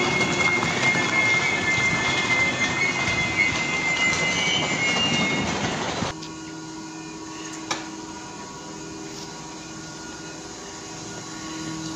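RegioJet passenger coaches rolling along the platform with a high metallic squeal over the running noise. The squeal and rumble cut off abruptly about six seconds in, leaving a quieter steady low hum and a single click shortly after.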